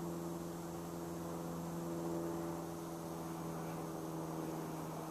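A steady low hum with a few even overtones over a faint hiss.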